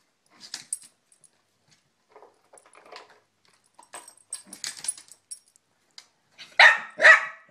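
Small dog nosing at a plastic food bowl, with light clicks and rattles of the bowl, its contents and the collar tags. Near the end come two loud barks about half a second apart.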